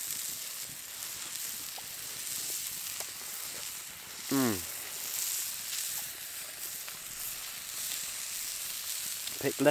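Food sizzling steadily in a hot cast iron skillet, a high even hiss. About four seconds in, a man gives a short 'mmm' that falls in pitch as he tastes.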